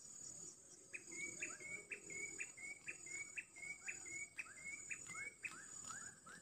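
Insects shrilling in a steady high, pulsing drone, with a fast series of short chirps, about two a second, starting about a second in and turning to short rising notes near the end.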